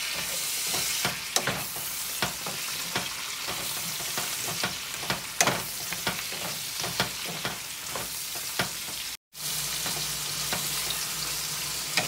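Carrot sticks and sliced onion sizzling in hot oil in a nonstick pan, stirred with a wooden spatula that knocks and scrapes against the pan many times. The sound cuts out for a moment about nine seconds in.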